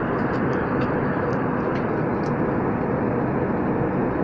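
Steady cabin noise of an Airbus airliner in flight: the even drone of the engines and rushing air heard through the fuselage.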